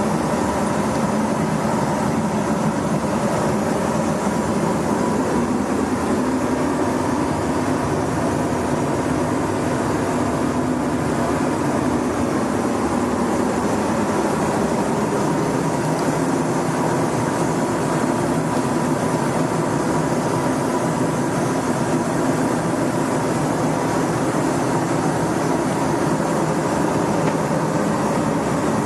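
Steady running noise of a moving passenger train, an even rumble and hiss with a few faint steady tones through it.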